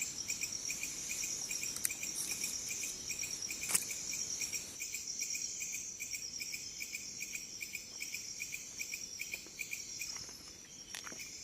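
Crickets chirping at night: a steady high trill with a pulsed chirp repeating about four times a second underneath. A couple of sharp clicks stand out, one near two seconds in and one near four seconds in.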